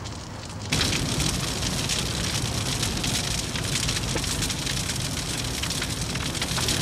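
A car engulfed in flames, the fire rushing and crackling steadily; the sound steps up suddenly in loudness just under a second in.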